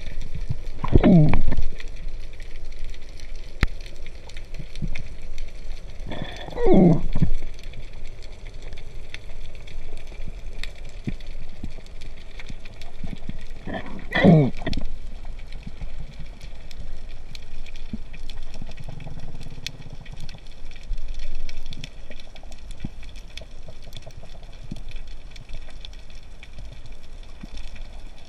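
Underwater ambience picked up by a diver's camera: a steady hiss with faint scattered clicks, and three short sounds that sweep down in pitch, about one, seven and fourteen seconds in.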